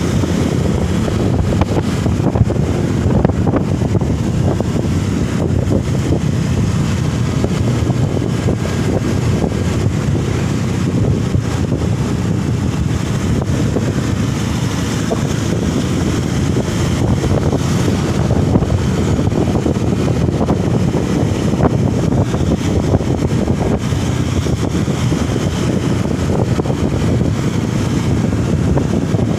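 Steady rumble of a moving vehicle with wind buffeting the microphone, loud and even throughout.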